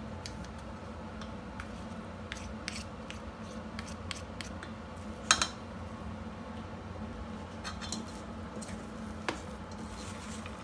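Wooden chopsticks and a metal spoon tapping and scraping in a stainless steel bowl as mashed potato is stirred, with scattered light clicks and a sharper clink about five seconds in and another near the end, over a low steady hum.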